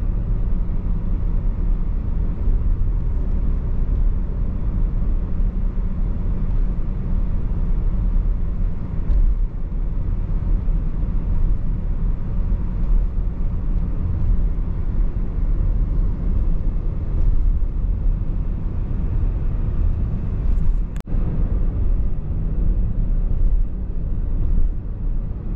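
Steady low rumble of a car driving on a paved highway, heard from inside the cabin: engine and road noise. A brief click with a short drop in level comes near the end.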